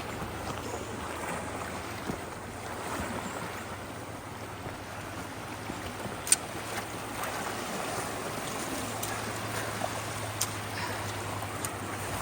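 Rain-swollen creek water rushing steadily through road culverts, with a low steady hum underneath and a single sharp click about six seconds in.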